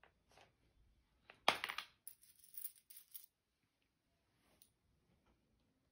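Coins clinking: one coin drops into a plush piggy bank with a sharp metallic clink about one and a half seconds in, followed by about a second of lighter clinks of coins, with a few faint clicks around them.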